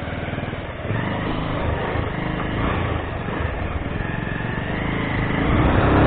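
Motorcycle engine running as the bike pulls away along the street, getting louder near the end as it picks up speed.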